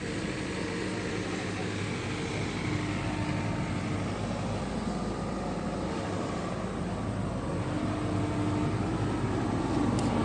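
Sany SY75 long-arm excavator's diesel engine running steadily, growing a little louder in the second half.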